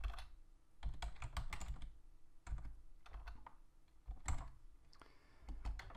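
Typing on a computer keyboard: short runs of keystrokes with brief pauses between them.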